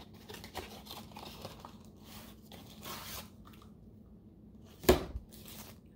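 Rustling and scraping of a thin white cardboard box as its flaps are opened and handled, with a single sharp knock about five seconds in.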